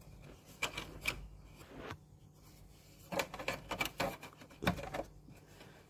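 Light handling noise from an opened power station's plastic casing being held and moved: a scatter of soft scrapes and small clicks.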